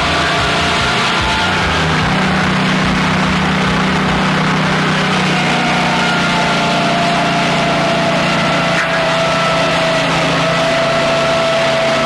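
Portable band sawmill running and cutting through a log: a steady, loud mechanical running noise with a constant whine, holding even throughout.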